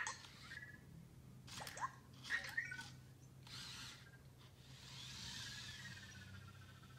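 Anki Vector robot moving on its treads: short spells of small-motor whirring from its drive and lift, with several brief electronic chirps and a longer wavering chirp near the end.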